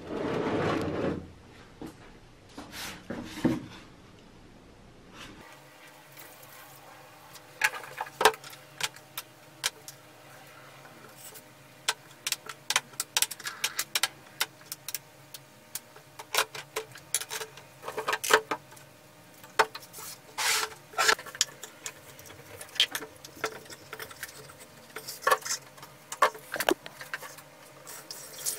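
A plastic tub is set down and slid on a wooden tabletop, the loudest sound, at the start. Then come irregular light clicks and clinks as small rusty brass fittings, nuts and washers are dropped one by one into the plastic tub.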